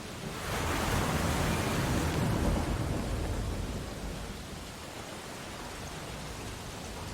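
Ocean surf: a wave breaks and surges in about half a second in, then washes back over the next few seconds into a steady hiss of surf.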